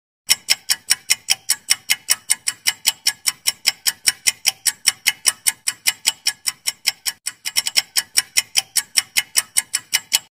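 Clock-ticking sound effect for a quiz countdown timer: sharp, even ticks, about five a second, cutting off as the count reaches ten.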